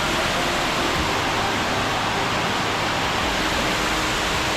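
Steady, even rush of water from a man-made waterfall.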